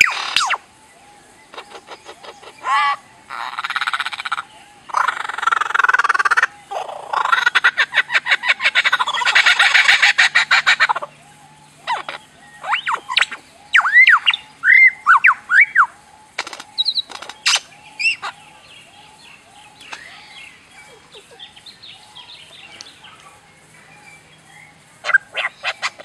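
Superb lyrebird singing a run of mimicry. It opens with loud, rapid trains of clicks and mechanical-sounding rattles, moves into a handful of rising-and-falling whistles, then a quieter warbling stretch, and ends with a few more clicks.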